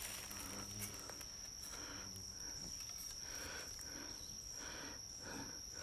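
Insects singing a steady, high-pitched drone, with a fainter pulsing call repeating about twice a second.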